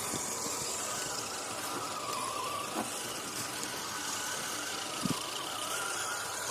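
Radio-controlled crawler truck's electric motor and geared drivetrain whining, the pitch rising and falling with the throttle, with two short knocks.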